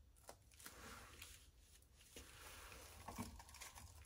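Faint scratchy squishing of a skewer being dragged through wet acrylic paint, with a sharper tick about three seconds in.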